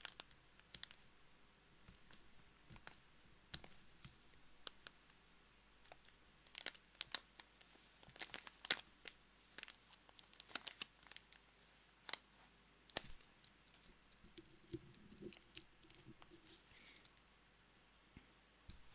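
Faint, irregular crinkling and crackling of a glossy packaging pouch being handled, the crackles coming thickest through the middle.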